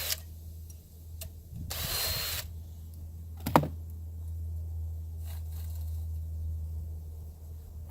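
Drill spinning a chainsaw sharpening stone, with a steady motor hum; the stone grinds against the chain's cutter teeth in short rasping passes, just at the start and again about two seconds in. A sharp click about three and a half seconds in.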